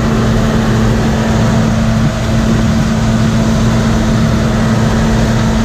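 A large farm machine's engine running steadily at constant speed, with an unchanging low hum.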